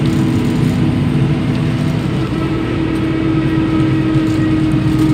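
Steady engine hum and road noise of a moving vehicle, with a constant low drone and no change in speed.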